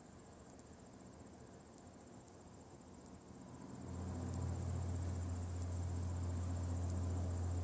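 A steady, deep, low hum that swells up about four seconds in and then holds, the kind of unexplained drone that is reported as a strange sound in the sky. A faint high pulsing tone runs under it.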